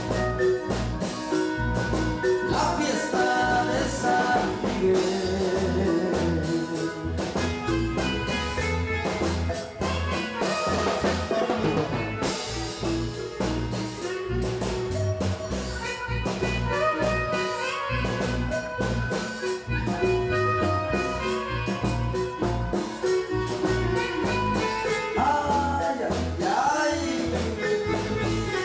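Live marimba band playing dance music, with a steady beat.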